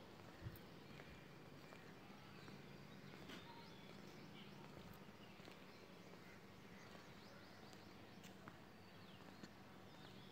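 Near-silent platform ambience: scattered faint bird chirps over a low, steady hum, with a few faint clicks.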